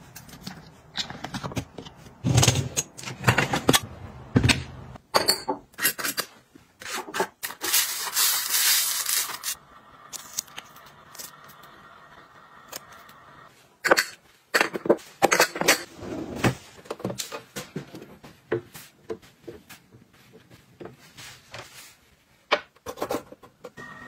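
Household containers being handled close up: a run of clicks, taps and knocks of plastic and glass lids, jars and trays. About seven seconds in, a rushing hiss lasts a couple of seconds.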